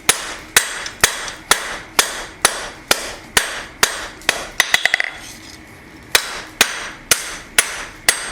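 Blacksmith's hand hammer striking knife steel on an anvil, about two ringing blows a second, drawing out the blade by hammering notches into its corner. Near the middle comes a quick run of light taps, then a pause of about a second before the steady blows resume.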